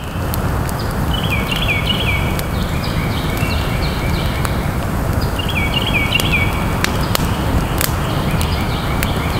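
Campfire of split sticks burning, with a few sharp crackles over a steady low rush. A bird gives two quick runs of repeated chirps, about a second in and again just past the middle.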